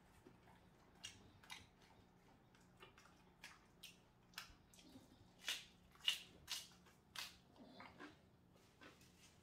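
Crunching and chewing of crispy fried chicken close to the microphone: a string of short crisp bites, thickest and loudest about five to seven seconds in.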